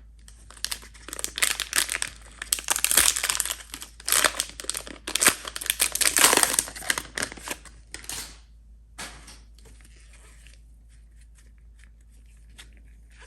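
Panini NBA Hoops trading-card pack wrapper being torn open and crinkled: dense crackling for about eight seconds, then a few faint rustles and ticks.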